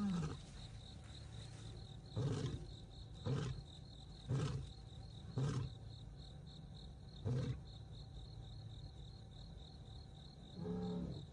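A lion's roaring bout tailing off into a series of short, deep grunts about one a second, with two more grunts near the end. Crickets chirp steadily in the background.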